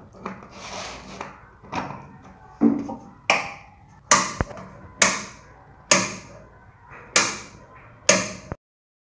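Rotary tap-selector switch of a manual voltage stabilizer being turned position by position, clicking sharply at each step. There are about six loud clicks roughly a second apart in the second half, after a few fainter ones.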